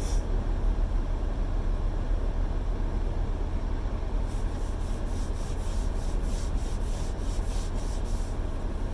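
Steady low road and engine rumble inside a moving car's cabin. From about four seconds in, a quick run of rhythmic rubbing or scraping strokes, about three a second, lasts for some four seconds.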